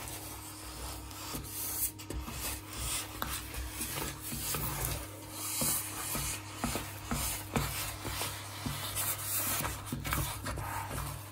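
Wooden spoon stirring and scraping a thick, sticky ghee-rich muscat (halwa) mixture around a pot in repeated rasping strokes. The mixture is near the end of cooking and stiff enough to come away from the sides of the pan.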